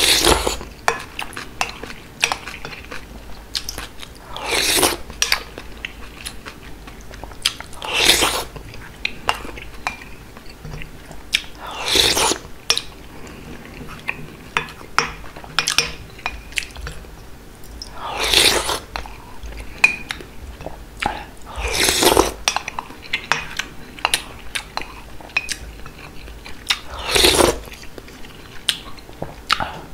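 Slurping spoonfuls of beef seaweed soup with rice from a wooden spoon: seven loud slurps a few seconds apart, with soft chewing and mouth clicks between them.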